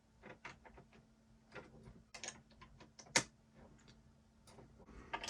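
Small plastic building bricks being handled and pressed together: scattered light clicks and taps, with one louder click about three seconds in.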